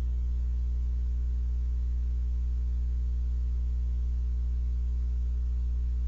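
Steady low electrical hum with a stack of even overtones, unchanging throughout.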